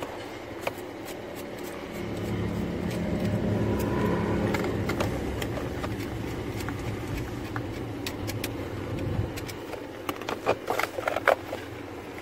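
A low steady hum swells up about two seconds in and stops about seven seconds later. Near the end comes a quick run of sharp plastic clicks and rattles as wiring connectors are worked loose at a car's interior fuse box.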